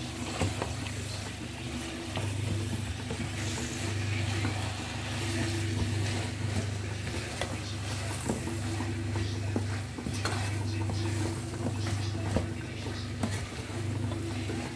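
Wooden spoon stirring greens and vegetables in an aluminium saucepan, with repeated knocks and scrapes against the pot and sizzling from the cooking food. A low hum runs underneath and breaks off briefly every couple of seconds.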